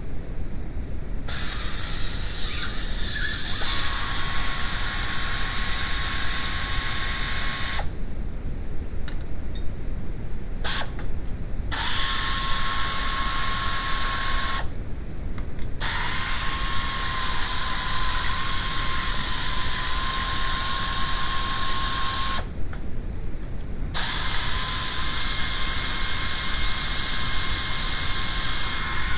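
A power tool running in long stretches with a steady whine, stopping and restarting about four times, over a constant low rumble.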